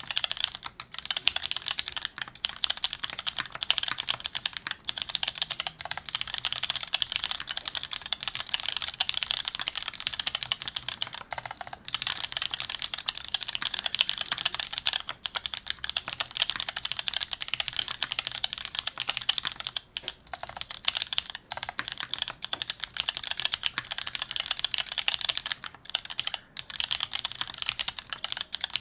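Typing on a TX84 mechanical keyboard with vintage Cherry MX Brown tactile switches, an aluminium plate and GMK Modern Dolch keycaps: a steady, dense stream of keystrokes, with brief pauses about 12 and 20 seconds in.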